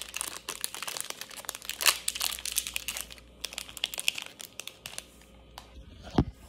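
Plastic wrapper of a Twix ice cream bar crinkling as it is handled, a run of rapid crackles for about five seconds. A dull thump near the end.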